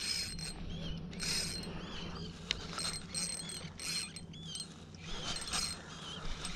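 Spinning reel being cranked, its gears whirring steadily as line is wound back in on a metal jig retrieve.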